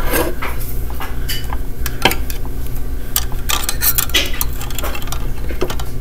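Copper wires being bent and twisted together inside a steel electrical box, scraping and clicking against the metal in irregular small clinks, over a steady low hum.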